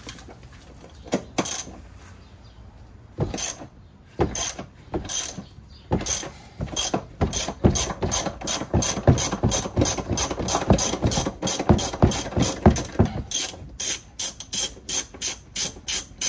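Hand ratchet wrench clicking as the 16 mm top bolt of a Jeep Grand Cherokee's rear strut is turned. A few scattered clicks come first, then a long run of quick ratcheting strokes about six seconds in, then evenly spaced clicks about three a second.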